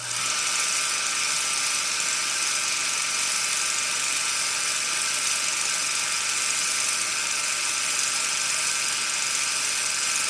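A steady, even hiss with faint high whining tones running through it, unchanging in level, which cuts off abruptly near the end.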